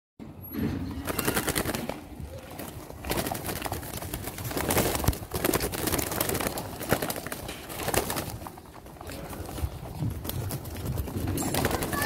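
A wire cage full of doves cooing in repeated swells every second or two, with rustling and fluttering among the crowded birds.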